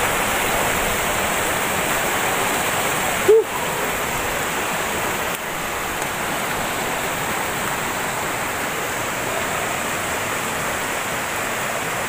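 Rushing water of a shallow rocky mountain stream below a waterfall: a steady, even noise. About three seconds in there is one short voice-like sound.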